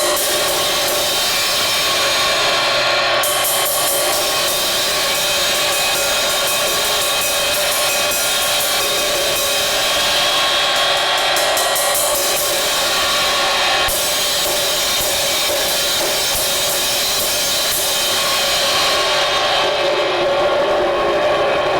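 Vintage 18-inch A. Zildjian & Cie cymbal, repaired after a crack around its edge, struck over and over in a sound test so its wash rings on without a break. Runs of quick strikes come near the start and again about halfway through, and the bright top of the wash thins out toward the end.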